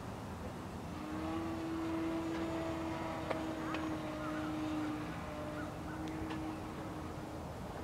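Electric motor and propeller of a small RC trainer plane, a HobbyZone Mini Apprentice, humming steadily at one pitch as it flies overhead. The hum swells about a second in and fades near the end, over low wind rumble on the microphone.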